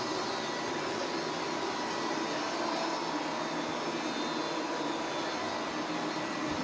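Robot vacuum cleaner running: a steady whirring suction-motor noise with a faint thin whine held at one pitch.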